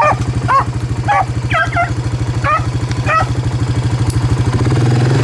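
ATV engine idling, with beagles on the rabbit's track giving about half a dozen short yelps over the first three seconds. Near the end the engine revs up.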